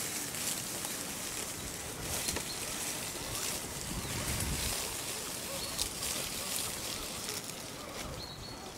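Dry leaves and twigs rustling and crackling under the tyres of a radio-controlled scale crawler truck as it drives over the forest floor, with a brief low rumble about four seconds in.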